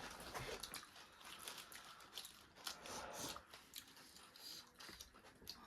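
Faint eating sounds: scattered soft crunches and small clicks of chewing.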